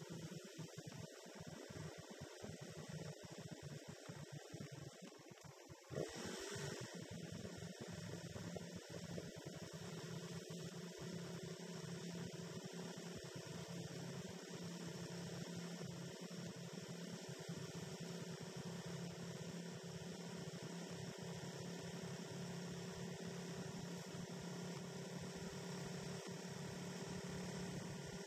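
A faint, steady electrical hum made of several unchanging tones, with one sharp click about six seconds in.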